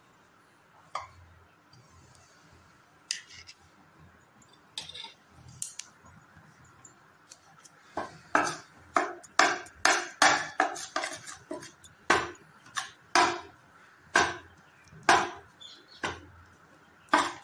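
Steel spatula scraping and clinking against a stainless steel pan while stirring water chestnut flour roasting in ghee. A few scattered knocks at first, then steady strokes about once or twice a second from about halfway.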